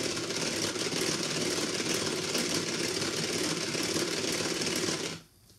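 Hand-cranked Tupperware Speedy Chef 2 beater whirring steadily as its gears spin the whisks through cream being whipped into chantilly, with a fine rapid clicking. It stops suddenly near the end.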